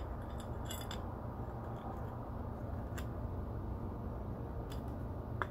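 A few faint metallic clicks as the timing chain and cam sprocket of an LS V8 are turned by hand to line up the timing dots, over a steady low background hum.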